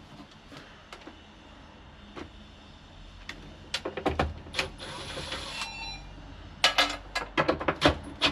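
Tools and parts being handled: scattered clicks and knocks, with a brief faint hum about five and a half seconds in, then a quick run of louder knocks near the end.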